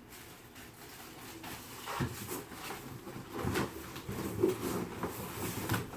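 Handling noises from unpacking a bicycle from its shipping box: rustling packaging and a few irregular knocks as parts are pulled out, the loudest a little past the middle.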